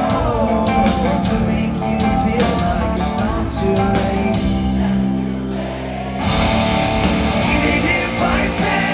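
Rock band playing live through a venue PA, with electric guitars, drums and singing. About five and a half seconds in the band drops briefly to held low chords, then the full band comes back in.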